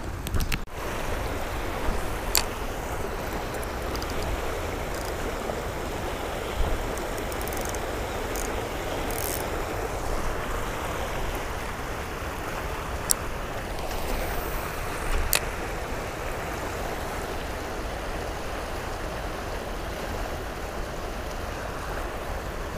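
River water rushing steadily over rocks, with a few brief sharp clicks.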